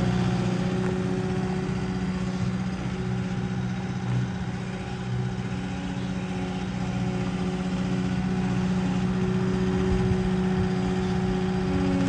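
Caterpillar 242D skid steer's diesel engine running steadily while the machine drives and turns, easing off slightly around the middle and building again toward the end.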